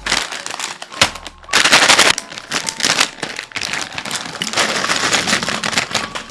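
Very fast typing on a mechanical keyboard with clicky Kailh Box Jade switches: a dense, unbroken stream of sharp clicks, thickest about one and a half to two seconds in.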